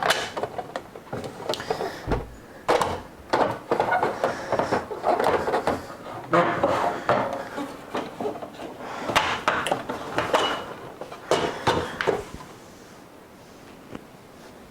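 Hard plastic coffee-machine parts being handled, with repeated knocks, clicks and clatter. It stops about twelve seconds in.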